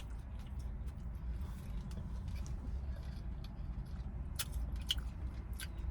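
Steady low rumble inside a car's cabin, with a few faint clicks about four and a half seconds in.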